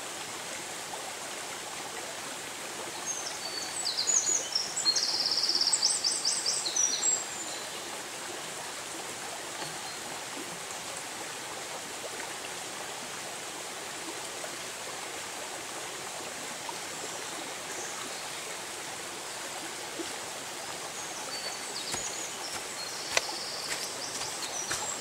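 Shallow forest stream running steadily over stones. A small songbird sings rapid high trills about three seconds in, the loudest sound, and again near the end.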